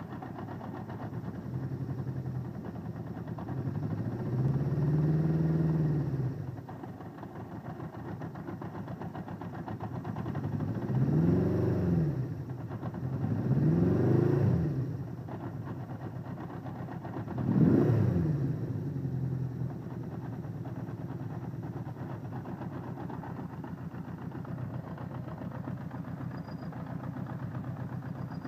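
Honda CB550's air-cooled inline-four engine idling, with four throttle blips that rise and fall in pitch; the first is held for about two seconds. The owner hears a noise that he locates at cylinder one and suspects is piston ring noise.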